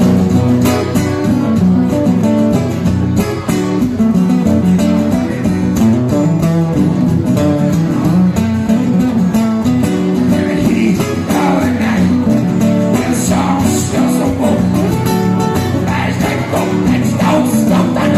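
Music: guitar-based song, a plucked or strummed guitar playing throughout, with what may be a singing voice in the second half.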